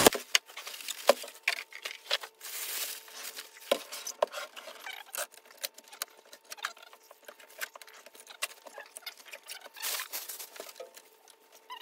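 Plastic packing bag rustling and crinkling, with scattered light clicks and taps as the foam packing and plastic wrap are pulled off a laser printer; the rustling swells about three seconds in and again near the end.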